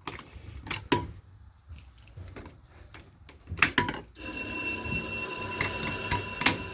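A few knocks and clicks, then about four seconds in an electric fire alarm bell starts ringing continuously during a fire alarm test.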